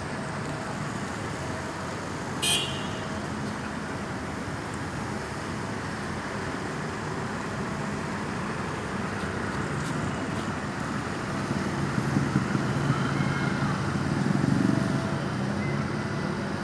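Road traffic noise: vehicle engines running and passing, growing louder for a few seconds near the end, with a brief sharp high-pitched sound about two and a half seconds in.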